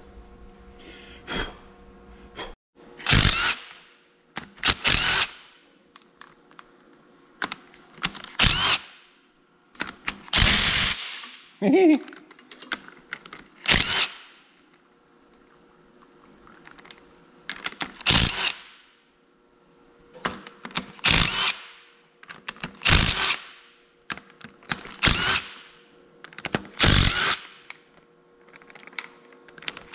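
Hand tools knocking and clanking on the cast-iron rear-end housing of an Oliver 1855 tractor. It is a string of sharp, short metallic hits about every two seconds, over a steady low hum.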